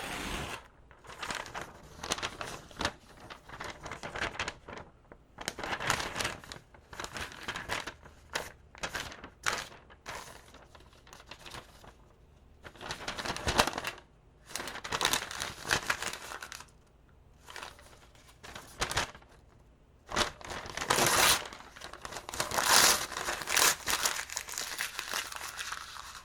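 Paper being torn and crinkled by hand: irregular rips and crumpling rustles with short pauses between them, some tears long and drawn out, the loudest about halfway through and in the last few seconds.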